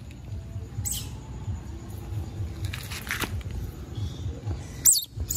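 Baby otter giving short high-pitched chirps that fall in pitch: a faint one about a second in and louder ones near the end, over low rubbing noise from the otter being handled against the microphone.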